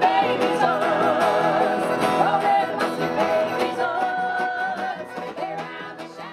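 Background music: a song with a singing voice and plucked guitar, fading out near the end.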